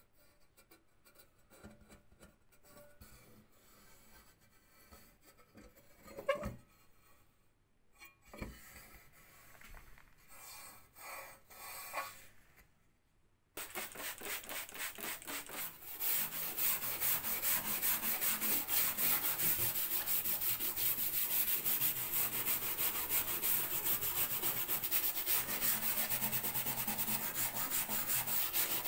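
Sandpaper wet-sanding a powder-coated sheet-metal plate by hand, in fast, even back-and-forth strokes. The sound starts suddenly about halfway through, after a quiet stretch with a few handling knocks, and begins as water is sprayed onto the plate.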